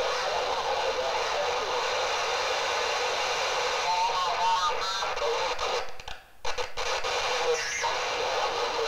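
Shortwave receiver audio from a software-defined radio tuned in upper sideband on the 20-metre amateur band: steady static hiss with faint voice traces in it around the middle. The audio cuts out briefly about six seconds in.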